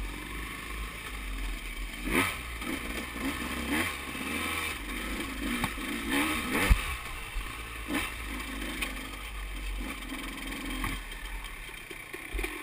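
Single-cylinder two-stroke engine of a 2014 KTM 200 XC-W enduro bike, its revs rising and falling over and over as it is ridden slowly along a slick, rooty trail. Knocks and clatter from the bike over the rough ground come through, the sharpest about two-thirds of the way in.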